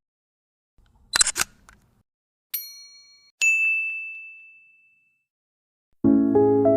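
Editing-app sound effects played one after another: a quick cluster of sharp clicks, then two bell-like dings, the second higher and ringing out for over a second. Soft keyboard music starts near the end.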